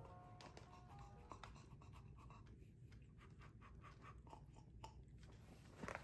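Near silence with many faint, short clicks and rustles; soft background music fades out in the first second.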